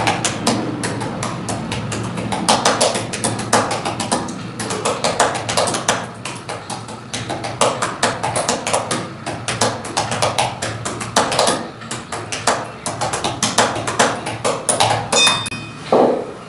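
Fast typing on a computer keyboard: keys clicking in quick, uneven runs several times a second, typing at speed for a timed typing test.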